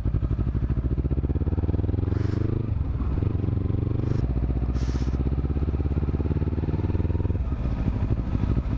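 Kawasaki Z300 parallel-twin motorcycle engine accelerating: the revs climb, drop at a gear change about two and a half seconds in, and climb again. Near the end they fall away as the throttle closes.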